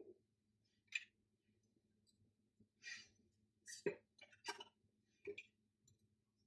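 Faint handling of tarot cards: a handful of short, light card slides and clicks as cards are moved off the top of the deck one at a time.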